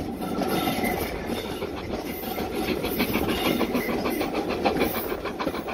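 Steam-hauled passenger train running along the track, heard from on board: a steady rumble of the carriage with the clatter and ticking of its wheels on the rails.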